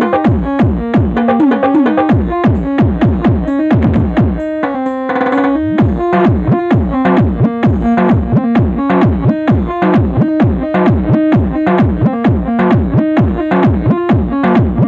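Electronic DJ sound-check music: a fast, even beat of synth hits with falling pitch drops. It breaks about five seconds in for a short held synth chord, then the beat comes back.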